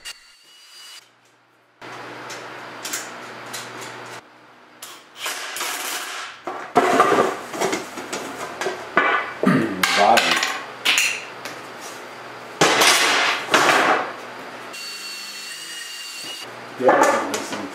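Sheet steel panels clanking and knocking as they are handled, with several short runs of a cordless drill boring holes through thin sheet steel.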